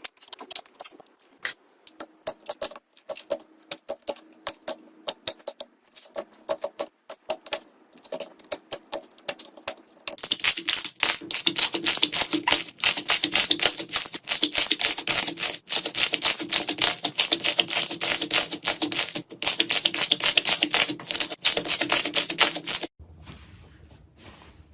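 Slime being pressed and squeezed, giving a rapid run of small clicks and pops. The pops are sparse at first, turn dense and louder about ten seconds in, and stop abruptly near the end.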